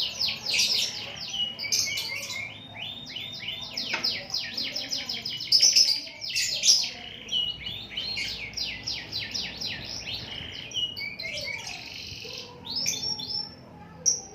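Domestic canary singing continuously in fast trills of rapidly repeated high notes, one rolling phrase running into the next with only brief breaks.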